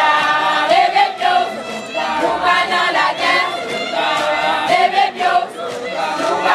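Church choir of many voices singing a gospel hymn together, with long held notes.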